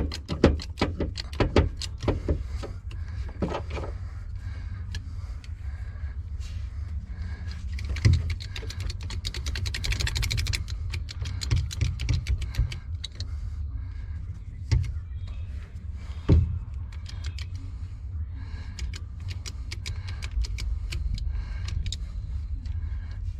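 Clicks and knocks of hand tools and heavy battery cable being handled while eyelet terminals are crimped onto 0-gauge cable. There is a quick rattle of fine clicks about ten seconds in and solid thumps about eight and sixteen seconds in, over a steady low hum.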